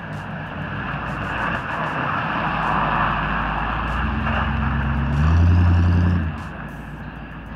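Square-body pickup truck driving past on a snowy road: a steady engine hum and tyre noise grow louder as it approaches. The engine note is loudest for about a second as it passes close and turns away, then drops off suddenly.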